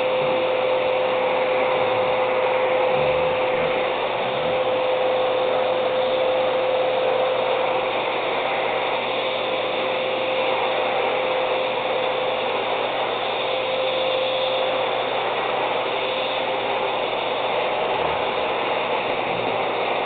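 Vacuum cleaner running steadily, a constant motor whine over the rush of air.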